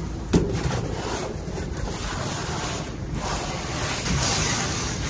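Wind buffeting the microphone, a rushing noise that swells and eases, with one sharp knock about a third of a second in.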